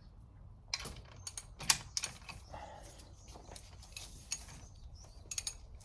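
Irregular metallic clicks and clinks as a Wheeler-Rex copper pipe crimp tool is adjusted on the pipe, the sharpest click about a second and a half in.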